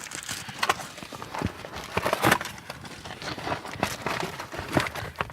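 Irregular rustling, light clicks and knocks as the new rubber dust boots and their packaging are handled.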